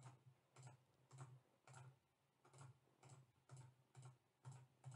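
A run of faint computer mouse clicks, about two a second.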